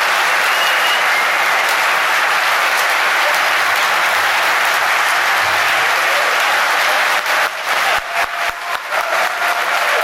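Large audience applauding, a dense steady wash of clapping that thins to scattered individual claps near the end.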